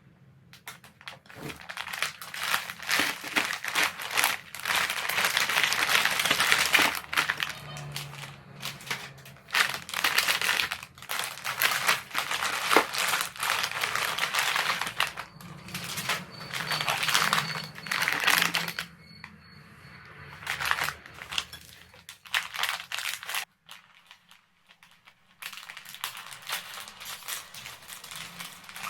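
Plastic snack wrapper crinkling and rustling in repeated bursts as the packets are handled, loudest and densest through roughly the first two-thirds, then quieter and sparser.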